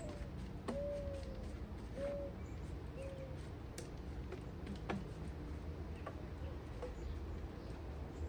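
A bird calling with a few low, arching notes about a second apart, the first the longest, then falling quiet. Faint scattered clicks and a steady low hum sit underneath.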